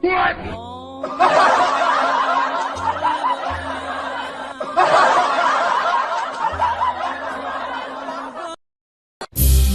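Canned audience laughter, a crowd chuckling and laughing, layered over steady background music. It starts about a second in and breaks off abruptly shortly before the end, and a short falling comic glide comes just before it.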